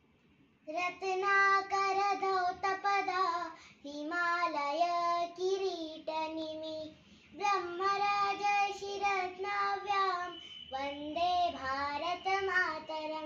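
A young girl singing a verse solo and unaccompanied, in four long phrases of held notes with short breaths between them.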